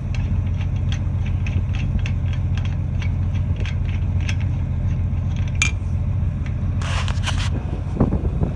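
A tractor engine idling steadily, with light metallic clicking and scraping as a harrow's jack stand is worked loose and pulled up out of the ground, and a louder metal clatter about seven seconds in.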